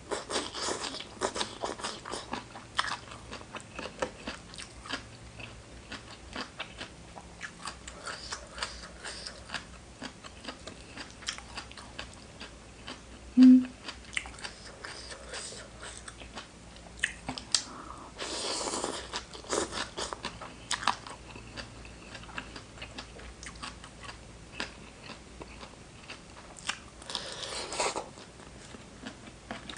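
Close-miked eating: a person biting and chewing spicy papaya salad with seafood and raw vegetables, a steady run of small crisp crunches and wet chewing. There is a short low hum about halfway through, and twice a longer hiss-like rush, after the middle and near the end.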